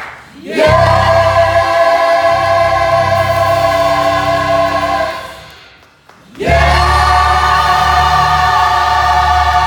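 Gospel choir singing two long held chords over a low sustained bass. The first swells in about half a second in and fades around five seconds; the second comes in after a brief gap and holds through the end.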